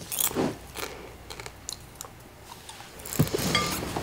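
A person chewing popcorn: irregular crunches, loudest just after the start and again from about three seconds in.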